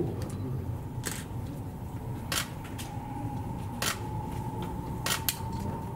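Camera shutter clicks, about five spaced irregularly, the last two in quick succession, over a steady low rumble.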